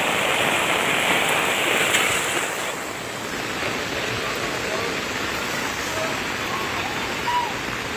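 Steady rush of flowing floodwater, with faint voices in the background.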